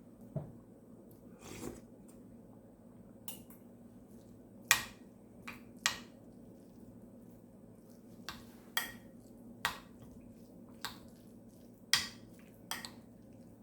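Cutlery clinking against a dish in about a dozen short, scattered taps.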